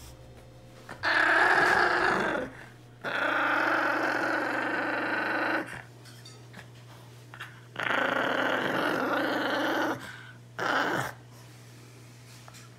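Small dog growling over a sneaker it is guarding and won't give up. It makes three long, steady growls and a short one near the end.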